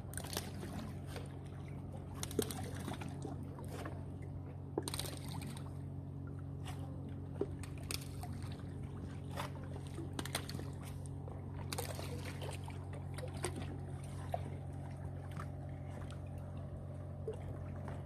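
Small lake waves lapping and trickling against the rocks at the foot of a stone shore wall, with scattered small splashes and clicks, over a steady low hum.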